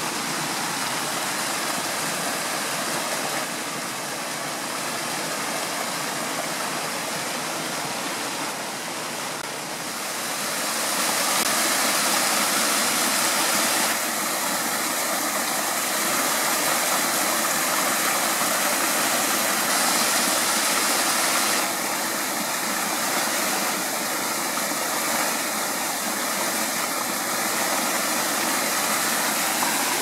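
Rushing water of a rocky mountain stream with a small waterfall splashing into a pool, a steady rush that grows louder about ten seconds in.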